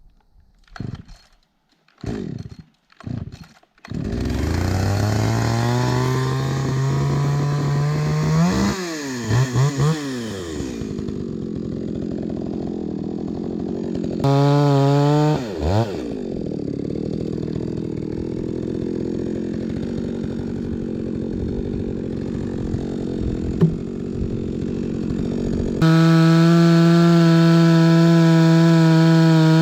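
Two-stroke chainsaw pull-started with a few short pulls, catching about four seconds in. It then runs, dropping to idle and being revved hard in short bursts, and is held at high revs near the end.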